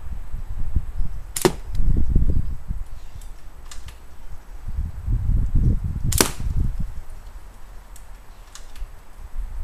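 Two sharp shots from an L96 airsoft sniper rifle, about five seconds apart, with a few faint clicks between them and a low rumble underneath.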